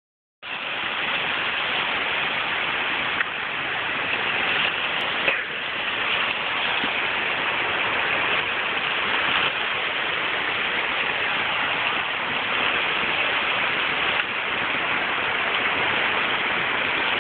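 Storm-force wind rushing through trees, a loud steady noise that swells slightly in gusts.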